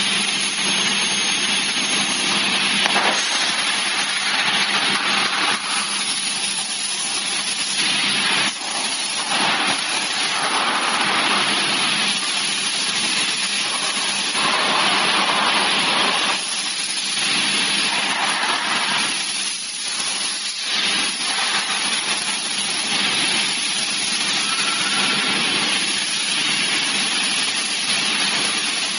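Maka PA37 CNC profile machining centre notching a long aluminium profile: a steady hissing cutting noise that swells and eases every few seconds, over a constant low hum.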